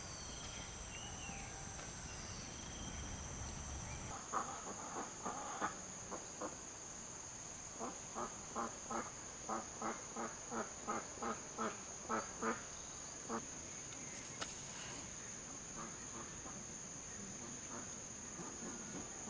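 A duck quacking in two quick runs of short calls, about three a second, over a steady high-pitched chorus of insects.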